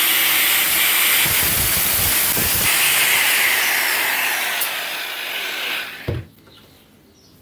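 Angle grinder running with its disc grinding the head off a metal rivet, a loud hissing grind. It winds down and stops about six seconds in, followed by a knock.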